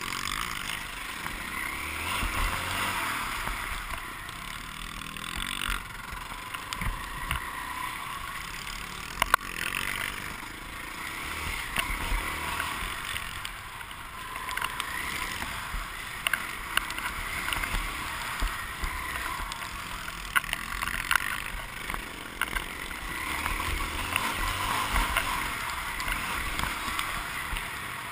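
Motocross bike engine at racing speed, heard through a helmet-mounted camera, its revs rising and falling every few seconds through the track's corners and straights. A few sharp knocks come through, the loudest about nine seconds in.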